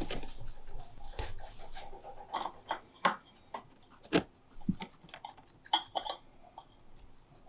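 Guinea pig moving about in its enclosure: irregular small scuffles, clicks and knocks, denser in the first two seconds, then a scattered series of sharper knocks.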